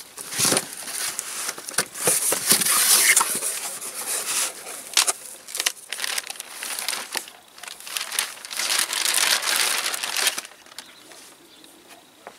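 Packaging being unwrapped: crinkling, crushing and tearing with sharp crackles, busy for about ten seconds and then dying down to a few faint clicks.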